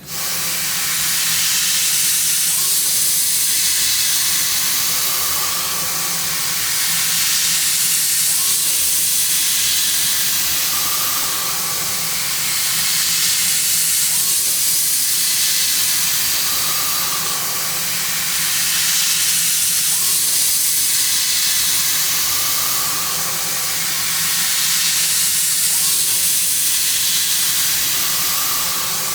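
CNC machining centre milling with a carbide end mill, heard as a loud, steady hiss that comes on abruptly and swells and eases about every six seconds.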